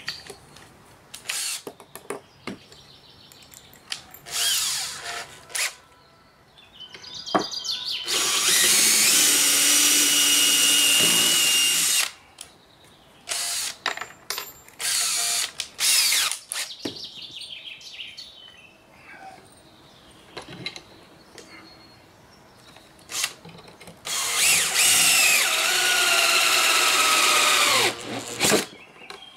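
Cordless drill boring pilot holes into wood: two long steady runs and several short bursts of the motor whine. At the end of the second run the pitch falls away as the motor slows.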